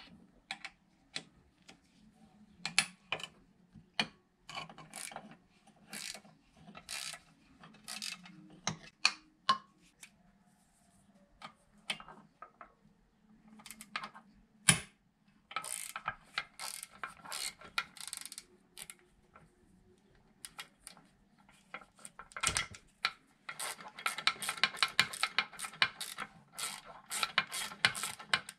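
Hand ratchet wrench clicking in short spells, with tools clinking, as bolts are worked on a small outboard motor. Near the end comes a long run of rapid ratcheting.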